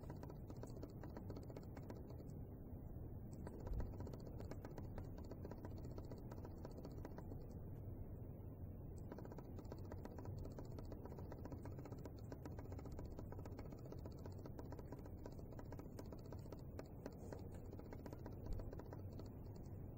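Faint steady low hum of a small motor, with light irregular clicking throughout and two soft thumps, one about four seconds in and one near the end.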